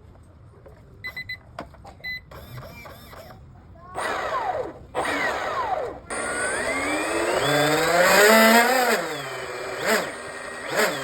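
Brushless outrunner motor of an RC boat being run up by its speed controller. A few short electronic beeps come first. Then the motor spins up in throttle bursts, its whine falling away after each short burst, and one longer run rises in pitch to a peak before falling, followed by quick blips near the end.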